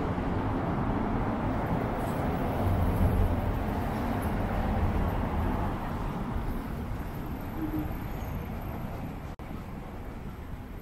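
City street ambience with road traffic: a steady noisy hum and a low vehicle rumble that swells a few seconds in and then fades away.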